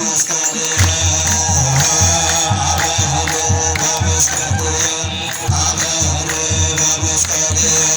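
Ethiopian Orthodox wereb music: chanted singing over jingling hand-held percussion, with a low drum beat coming in about a second in and keeping an uneven pulse.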